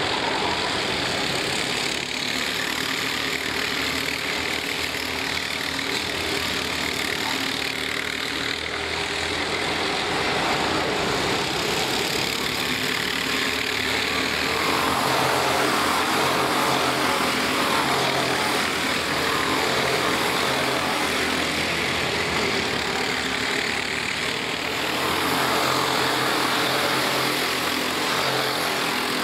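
A pack of four-stroke racing karts running at speed around the circuit: a continuous overlapping engine drone that grows louder past the halfway point and again near the end as karts pass closer.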